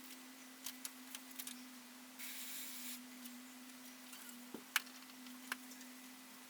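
Airbrush giving a short burst of spray hiss about two seconds in, over a steady low hum, with a few light clicks scattered through.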